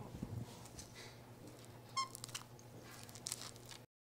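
A capuchin monkey gives one short, high squeak about two seconds in, among soft rustling and small clicks; the sound cuts off abruptly near the end.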